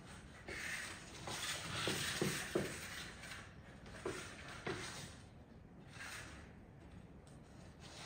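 Clear plastic box scraping and sliding across a wooden floor as a kitten pushes it, in several spells of scraping with a few light knocks.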